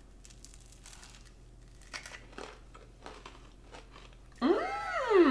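Macaron shells crunching in faint, scattered crisp clicks as two people bite into and chew them, the sound of a crunchy outer shell. About four seconds in, a loud, drawn-out vocal exclamation rises and then falls in pitch.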